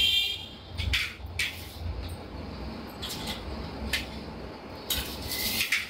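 Metal tube frame of a folding baby bassinet clicking and clinking as its legs are handled and fitted together: a handful of sharp, separate clicks over a low rumble of handling.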